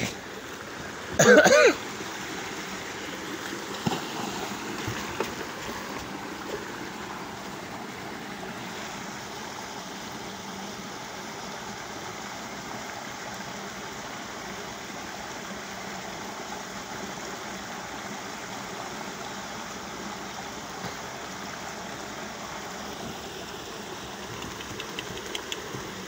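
Stream water running steadily, a constant even rush. A man's voice calls out once, briefly, about a second in, and a few faint knocks come around four to six seconds.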